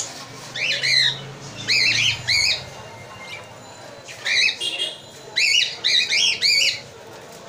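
Budgerigar chicks about twelve days old calling: short squawking calls that rise and fall in pitch, in several quick runs with short pauses between.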